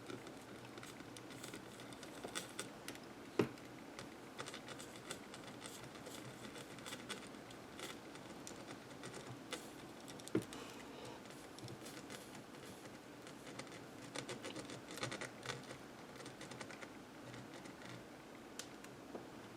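Small irregular clicks, taps and scratches of tools and thin wire being handled during fine soldering work on a calculator circuit board, with two sharper knocks, one about three seconds in and one about ten seconds in.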